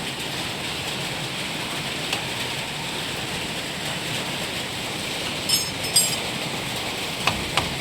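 Steady hiss like rain, with a few light clicks and a brief high chirping sound about five and a half seconds in.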